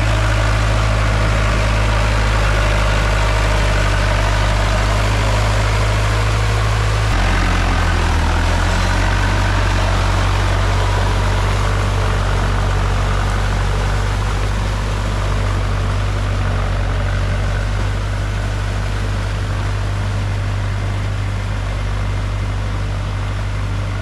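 Tractor engine running steadily under load while ploughing a rice paddy; about seven seconds in its note drops slightly and then holds.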